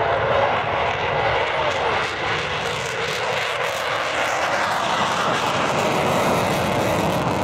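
Fighter jet's engine noise during a display flight: a steady, loud rush of jet noise.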